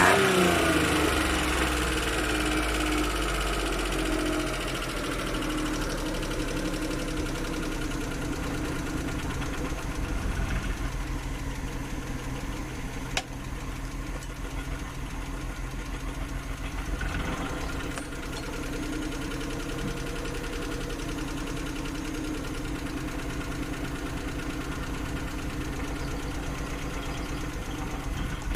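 Carbureted Suzuki F6 three-cylinder engine running. It drops from a rev to a steady idle in the first couple of seconds, then swells slightly twice, about a third and about two-thirds of the way through. There is a single sharp click a little under halfway.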